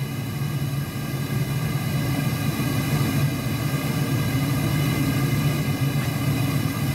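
Amal gas burner firing into a gas-bottle heat-treating forge: a steady low roar of the flame, set to a rich mixture.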